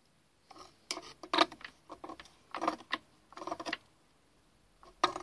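Steel spanner clicking and clinking against the steel nuts of a lathe lead screw coupling as they are tightened: a run of light metallic clicks, irregularly spaced, in small clusters.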